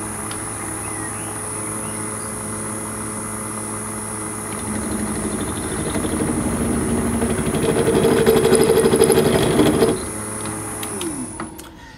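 Benchtop mill-drill running a 3 mm end mill down into a seized screw to mill it out. The spindle whine grows louder and rougher as the cutter bites, loudest with a fast chatter about eight to ten seconds in. It then eases off and the spindle winds down, falling in pitch, near the end.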